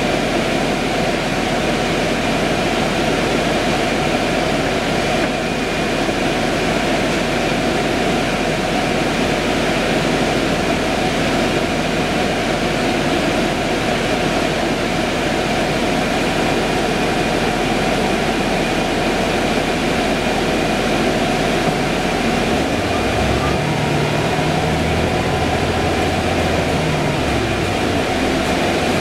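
Cabin noise inside a 2011 Orion VII hybrid transit bus standing at a stop: a steady drone of the drivetrain and ventilation fans with a faint high whine. About 23 seconds in, a lower humming tone comes in and shifts in pitch as the bus pulls away.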